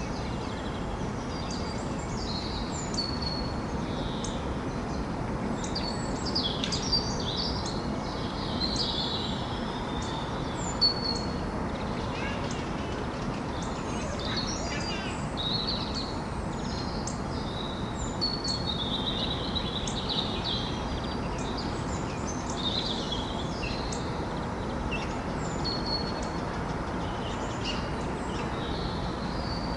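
Morning birdsong: several birds chirping and whistling short high notes throughout, over a steady low city hum. One brief sharp tick stands out about eleven seconds in.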